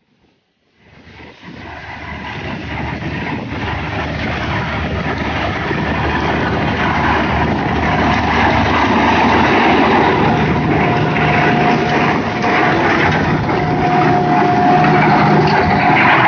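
Claas tractor's diesel engine working steadily under load while its rear-mounted flail mulcher shreds dry maize stalks, the engine note mixed with the rotor's chopping noise. It starts from silence about a second in and grows steadily louder as the rig approaches, with a thin steady whine joining over the last few seconds.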